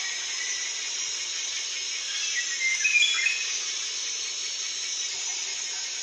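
Tropical rainforest ambience: a steady, high insect chorus, with a bird giving a short burst of calls about halfway through.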